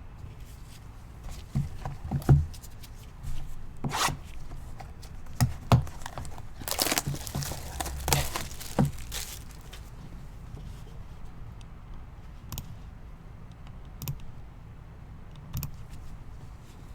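A sealed trading-card box and its wrapping being handled and torn open: a few knocks and clicks, then about two seconds of tearing and crinkling near the middle, then light handling clicks.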